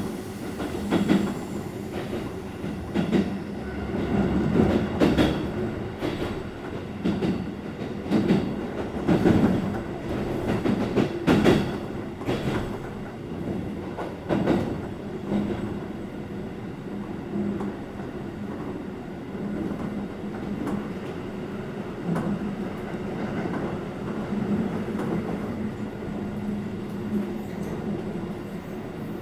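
A Keikyu Type 600 electric train running, heard from inside the passenger car: a steady rumble and low hum, with irregular clacks from the wheels through the first half that thin out later on.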